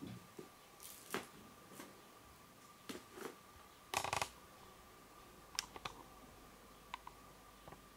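Quiet scattered rustles and ticks of a feather cat-toy wand being waved over a fabric blanket, the loudest a short rustle about four seconds in, over a faint steady high hum.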